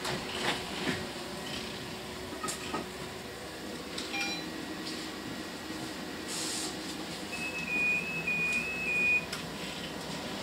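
Cabin sound of a Volvo 7900A hybrid articulated bus: a steady hum with scattered rattles and clicks. A short beep comes a little before the middle, then a brief hiss of air. Near the end there is a run of short beeps alternating between two high pitches.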